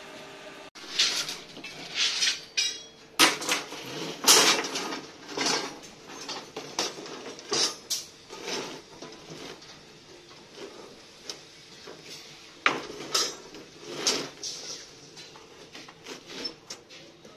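Steel reinforcing bars clanking and rattling against one another and the steel table of a rod bending machine as they are handled and laid in place: a string of irregular metallic knocks with short ringing, busiest in the first half, over a faint steady hum.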